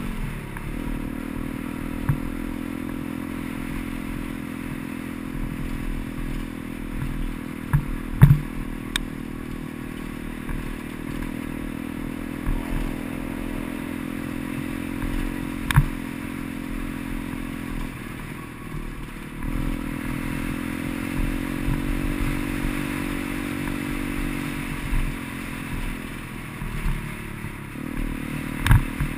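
Gio X33 140 cc pit bike's single-cylinder four-stroke engine running at steady riding revs, its note breaking and changing pitch briefly past the middle and again near the end. A few sharp knocks and rattles from the bike stand out over the engine.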